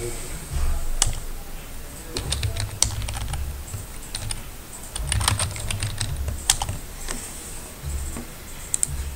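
Typing on a computer keyboard, in short bursts of keystrokes with pauses between them.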